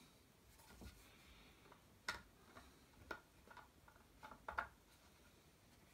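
Faint, irregular small clicks and taps of hands fitting the battery and its cover into a Yaesu FT-817ND portable radio, with near silence between them.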